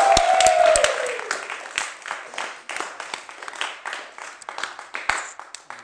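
Audience clapping and applauding, dying down toward the end, over one voice holding a final note that slides down and stops about a second and a half in.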